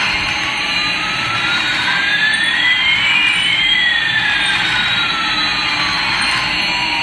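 Jet-engine sound effect: a steady rushing noise with one whine gliding up and another gliding down, the two crossing about halfway.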